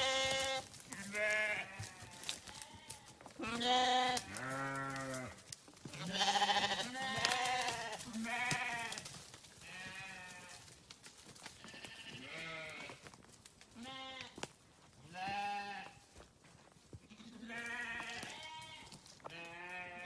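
Sheep bleating over and over, a dozen or more separate calls each lasting up to about a second. The calls come at several different pitches, some higher than others, as from several animals.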